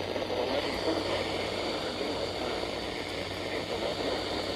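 Weather radio broadcast heavy with static: a steady hiss covering a faint, garbled announcer's voice, over a low steady hum.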